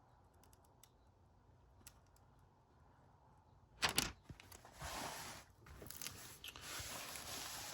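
A sharp crackle about four seconds in, then a few seconds of crinkling rustle: a diamond painting canvas and its plastic covering being handled.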